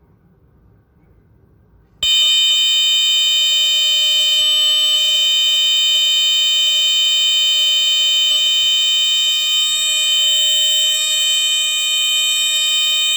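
Vulcan Autosonic PVR Mark-1 smoke detector's horn sounding: about two seconds in it starts abruptly and holds one steady, unbroken squealing tone, the full "DC squealer" type of horn sound.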